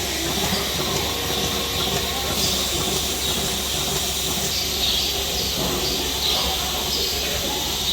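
Milking machine running with a steady hiss while it milks a cow, the milk still flowing into the collection jar.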